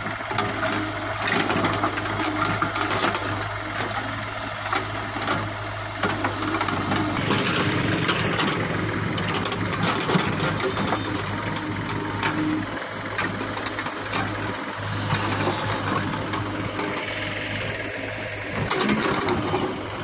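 JCB 3DX backhoe loader's diesel engine running steadily under load while the backhoe arm digs and swings, with scattered short knocks and clatter through the work.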